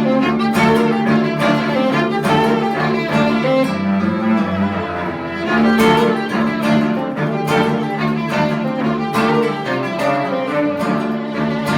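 Background music carried by bowed strings, with sustained notes.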